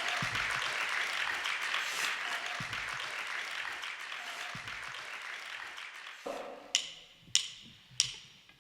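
Audience applause fading away after a song, then four evenly spaced clicks about two-thirds of a second apart: drumsticks clicked together counting in the next song.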